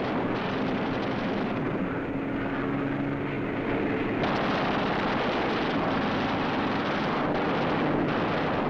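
Propeller-driven WWII warplane engines droning, a dense steady roar with a faint engine pitch. It grows louder and fuller about four seconds in.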